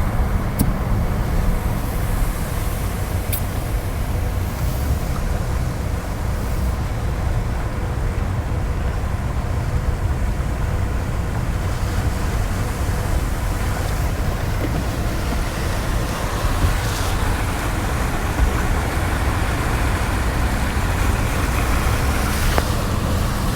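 A car driving through standing floodwater, heard from inside the cabin: a steady low rumble of engine and tyres with the rush of water under the car.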